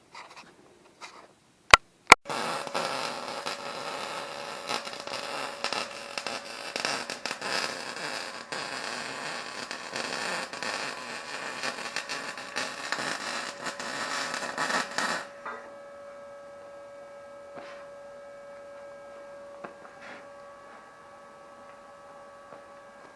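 Electric arc welding on steel: two sharp clicks about two seconds in, then a steady crackling arc for about thirteen seconds that stops abruptly. A quieter steady electrical hum carries on after the arc stops.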